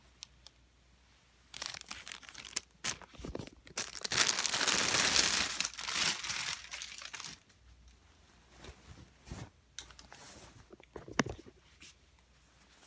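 Crinkling and tearing noise that starts about a second and a half in, is loudest for about three seconds in the middle, and stops abruptly, followed by a few scattered clicks.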